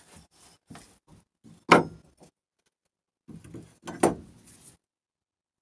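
Hand tools working wood at a workbench: a knife cutting in at the corner of a lap joint with light scrapes and clicks, a sharp knock just under two seconds in, a second of quiet, then more scraping and another knock about four seconds in.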